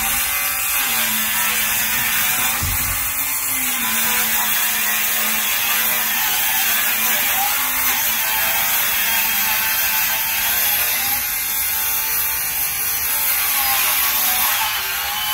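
Circular saw running continuously as it cuts along the edge of an OSB subfloor sheet.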